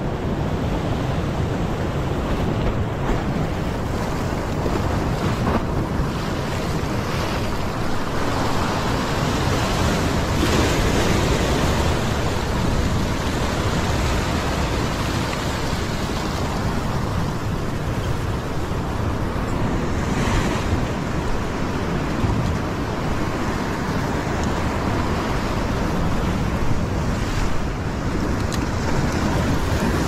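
Heavy surf surging and foaming against a rock ledge: a continuous loud rush of breaking water, with wind buffeting the microphone.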